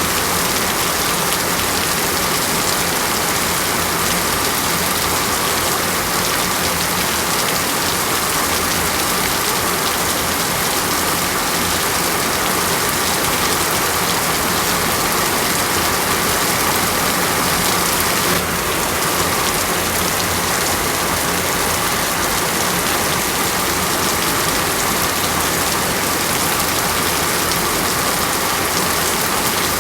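Steady rain falling, a dense even hiss with no let-up, broken only by a slight momentary dip about eighteen seconds in.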